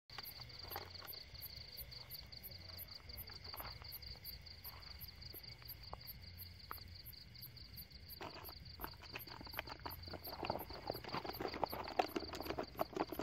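Night insects calling: a high-pitched chirp pulsing about four times a second over a steady shrill trill. From about eight seconds in, soft crunching and rustling of movement in the dirt and weeds grows louder.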